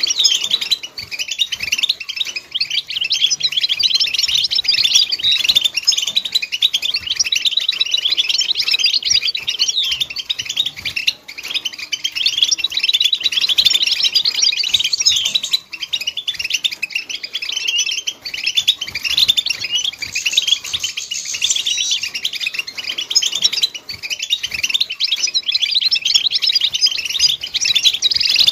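European goldfinch song: a rapid, unbroken twittering of high chirps and trills, the kind of song played to teach young goldfinches to sing.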